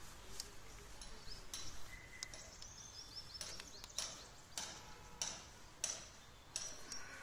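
Pliers tightening the terminal nut of a supercapacitor, giving a series of sharp metallic clicks, roughly one or two a second, as the jaws grip and slip on the nut.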